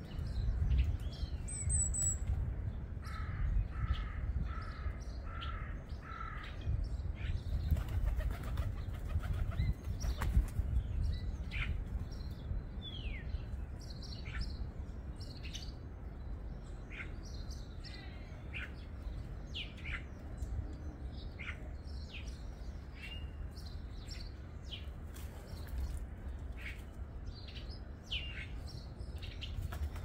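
Garden birds calling throughout with short, high chirps and quick downward-sliding notes. A run of five evenly spaced, lower calls comes a few seconds in, and there is a short patch of rustling, like wing flaps, about eight to ten seconds in, over a steady low rumble.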